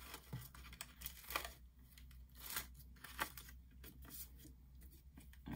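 Faint rustling and crinkling of die-cut cardstock sheets being picked up and handled, in short scattered bursts.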